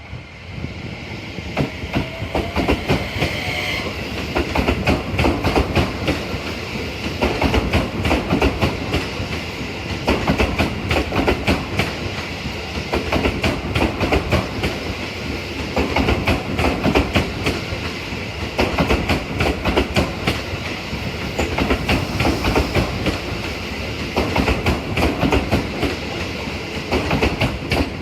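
Keio 5000 series electric train running through the station, its wheels clacking over the rail joints in repeated clusters every couple of seconds as the cars pass one after another.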